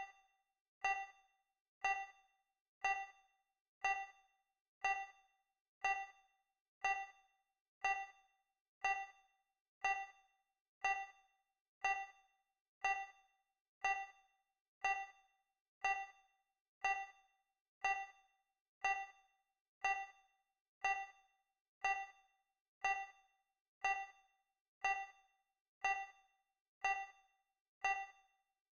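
Digital countdown-timer tick sound effect: a short, bright ding once every second, each fading quickly.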